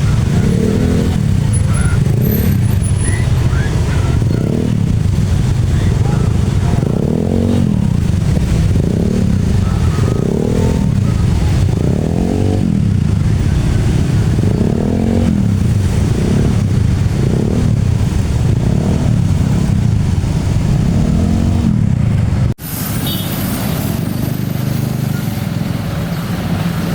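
Road vehicles running at a railway level crossing, under a pitched tone that rises and falls a bit more than once a second. The sound cuts off suddenly near the end and gives way to a steadier traffic noise.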